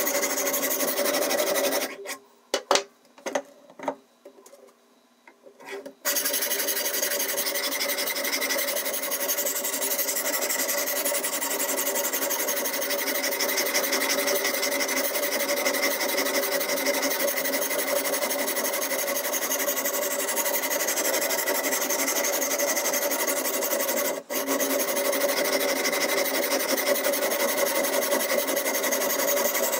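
A diamond whetstone on a Ruixin Pro RX 008 guided-arm sharpener grinds steadily back and forth along a steak knife's steel edge. The grinding stops for about four seconds near the start, broken only by a few sharp clicks, and breaks off again for a moment about three-quarters of the way through.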